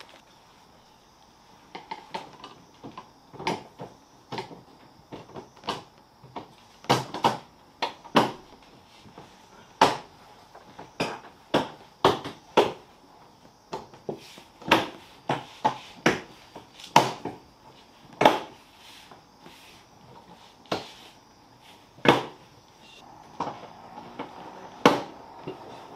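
Irregular sharp clicks and knocks of hard plastic as a new defroster vent is handled and pressed into a Mazda RX-7 FD3S dashboard. A faint steady hum comes in near the end.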